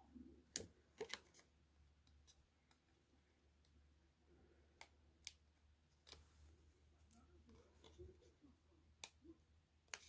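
Faint handling of a sheet of foam adhesive dots on paper backing: a handful of light, sharp clicks and soft paper rustles as the dots are peeled off and pressed onto cardstock.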